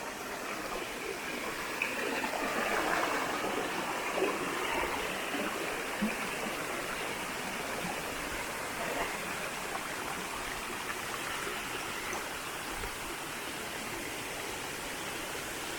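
A forest stream flowing: a steady rush of running water.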